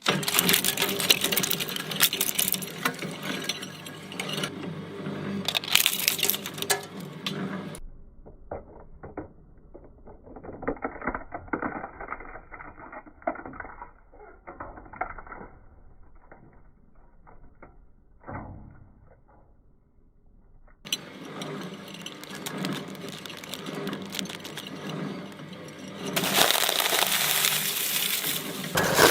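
Electric shredder running and grinding Play-Doh: a steady motor hum under crackling and crunching. In the middle it drops to a quieter, muffled stretch of crackling, then the loud shredding starts again about twenty seconds in.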